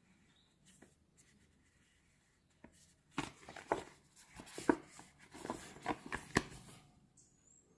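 Card packaging sleeve of a Japanese pull saw rustling and crinkling as gloved hands turn it over and slide it, a busy run of scratchy crackles with sharp snaps starting about three seconds in and stopping shortly before the end.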